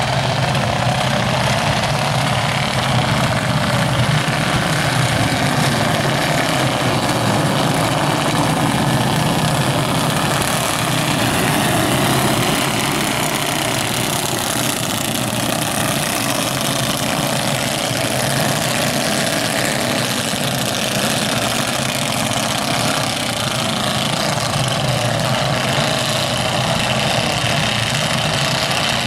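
Several small racing go-kart engines running together, a loud, steady drone.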